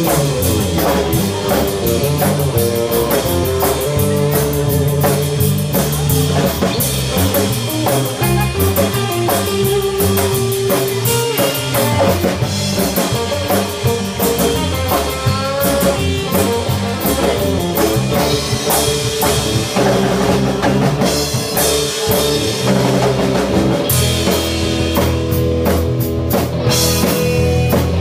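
Live instrumental surf rock: electric guitars over a bass line and a drum kit, with no singing.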